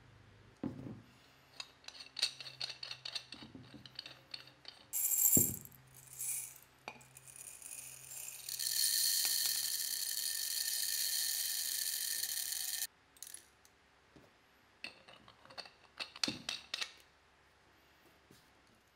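Airsoft BBs poured from a ceramic mug into the gun's metal tube, a steady rattling stream for about four seconds that stops abruptly. Before it come scattered clicks, clinks and one louder clatter, and after it more clicks as the cap is fitted into the tube's end.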